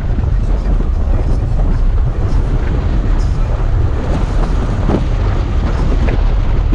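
Toyota FJ Cruiser's 4.0-litre V6 running under load through deep sand, a steady low rumble with wind noise on the microphone and scattered knocks and rattles.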